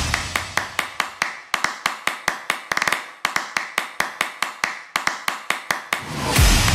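Rhythmic percussion in the soundtrack: a fast, even run of sharp clicks or taps, about five a second, with a brief quicker flurry near the middle. Near the end a swell builds into a deep drum hit.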